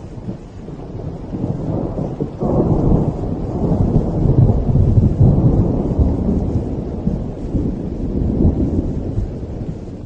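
Thunder rumbling low and heavy. It swells sharply about two and a half seconds in, peaks mid-way, then eases off.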